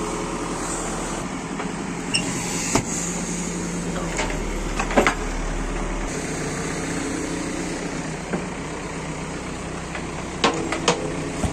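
Diesel engine of a JCB backhoe loader running steadily at idle. A few sharp knocks break in, with a cluster near the end as the loader's toothed bucket comes down by the tyre.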